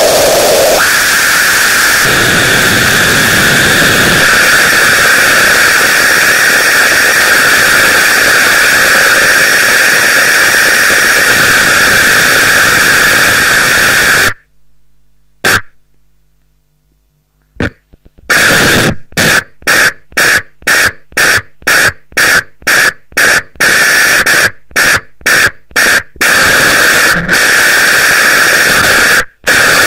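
Loud, harsh static-like noise with a bright hissing band. About fourteen seconds in it cuts out abruptly and stays nearly silent for about four seconds. It then returns in stuttering bursts, chopped by short gaps about twice a second, with a steady stretch near the end.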